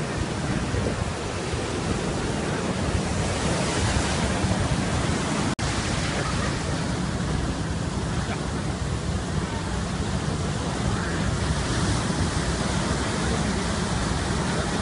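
Heavy storm surf breaking and washing up the shore, a steady rushing noise with wind. The sound cuts out for an instant about five and a half seconds in.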